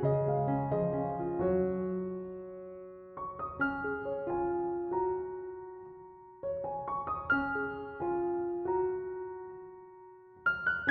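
Background piano music: a gentle melody played in short phrases of notes that ring and fade.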